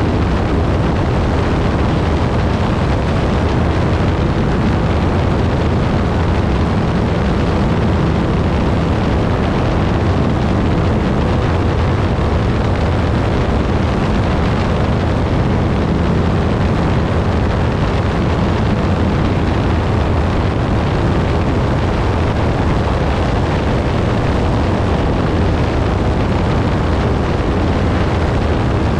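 Piper Pawnee towplane's engine and propeller running steadily at high power while towing a glider, with a deep, even drone and wind noise.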